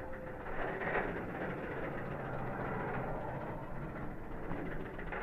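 Bolliger & Mabillard dive coaster train running along its track, a steady rumble and rush of noise with no clear change.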